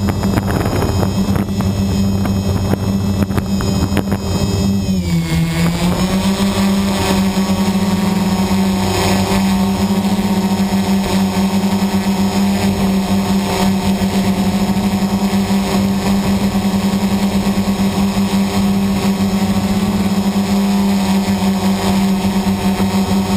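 Electric motors and propellers of a small radio-controlled aircraft, heard from the aircraft itself: a loud, steady whine that briefly drops in pitch about five seconds in and then comes back up as it climbs.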